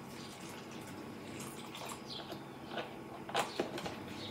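Beef broth poured from a carton into a slow cooker crock, a faint liquid trickle, with a few light clicks about three and a half seconds in.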